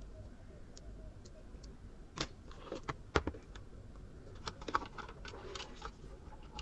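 Scattered light clicks and brief rustles of handling a power adapter's cable and a plastic set-top box, with the two sharpest clicks about two and three seconds in and a cluster of small knocks and rustles a little later.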